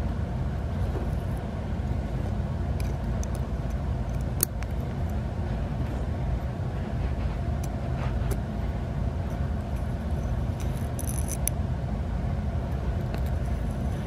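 Steady low background hum, with a few faint ticks and scrapes of a pointed metal tool picking hair out of the end of a Roomba extractor roller.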